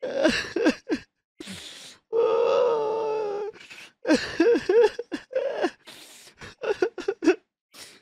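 A person crying: short broken sobs and sharp gasping in-breaths, with one long drawn-out wailing cry held for about a second and a half starting about two seconds in.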